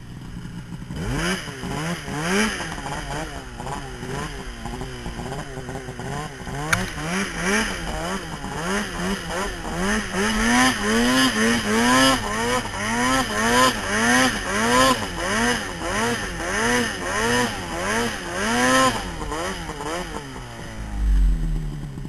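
2011 Polaris RMK Assault 800 snowmobile's two-stroke twin revving hard, its pitch swinging up and down about twice a second in a long run of throttle pulses, then dropping back near the end.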